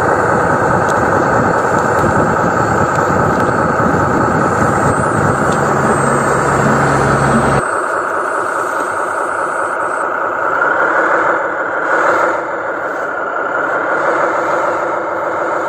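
Heavy dump truck driving, its engine running under steady road noise. About seven and a half seconds in the sound changes abruptly to a thinner engine sound. A brief whine rises and falls a few seconds later.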